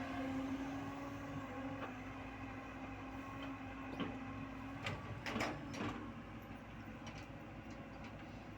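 JCB 140 excavator running with a steady hum that fades about halfway through, then several sharp metallic clanks about five seconds in.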